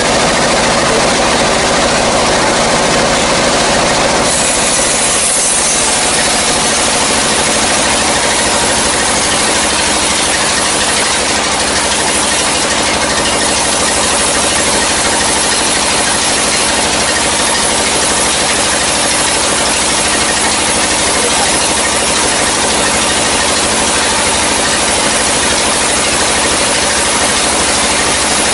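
Sawmill band saw running and its blade ripping lengthwise through a dry, long-felled log as it is pushed through the cut. The noise is loud and steady, and its tone shifts about four seconds in.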